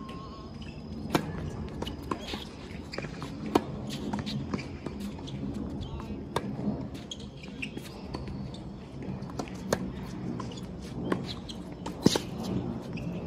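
Tennis ball struck by racket strings through a serve and rally: sharp pops every two to three seconds, the loudest about a second in, at about three and a half seconds and at about twelve seconds, over a low steady background hum.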